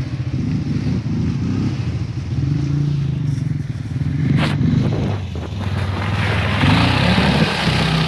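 ATV engines running at low revs as quad bikes come down the track, then from about six seconds in one ATV ploughs through a shallow stream, its wheels throwing up a rush of splashing water over the engine note.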